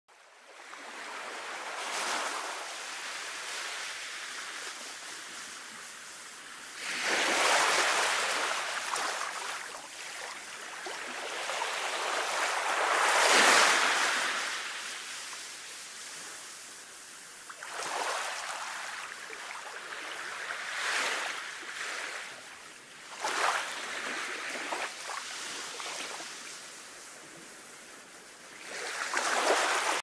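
Small waves washing onto a sandy beach, surging and ebbing every few seconds, with the biggest washes about 7 and 13 seconds in.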